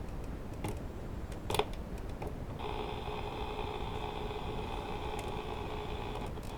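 TWINBIRD RCL-340 clock radio's speaker giving a steady static hiss, with a couple of sharp clicks, then a steady buzzing tone for about four seconds that cuts off near the end.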